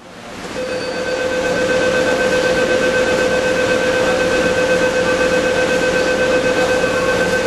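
Running sound of an MLR electric train's motor car. The Alstom GTO inverter and traction motors give a steady whine at one fixed pitch with higher overtones, over the rumble of the wheels on the track. The sound fades in over the first couple of seconds after a break, then holds steady.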